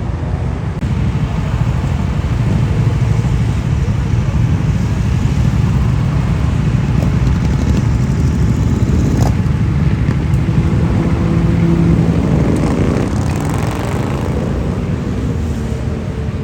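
Motorcycle engine running close by, a loud steady low pulsing with a brief sharp click about nine seconds in.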